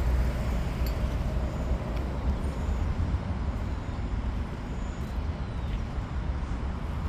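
Road traffic running steadily as a low rumble with a noise haze above it, and a few faint ticks.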